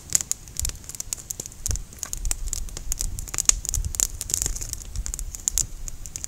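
Wood campfire crackling, with frequent irregular sharp pops.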